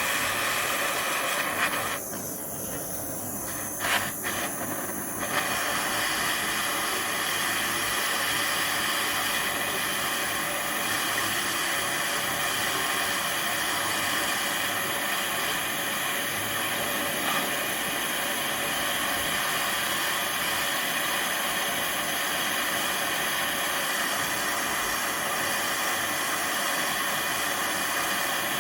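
Gas flame hissing steadily as it heats the bent steel steering arm rod. The upper part of the hiss dips for a few seconds about two seconds in, with a couple of faint knocks, then carries on.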